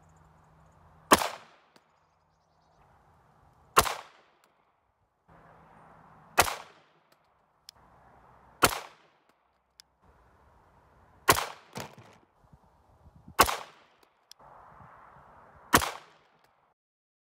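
Seven shots from a 9mm Luger pistol firing handloaded rounds with standard small pistol primers, one every two to three seconds, each a sharp crack with a short tail.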